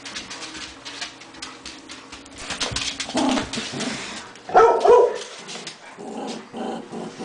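Two small dogs playing together over a toy on a fleece dog bed, scuffling and rustling throughout. Short barks come about three seconds in, and the loudest pair of barks is at about four and a half to five seconds.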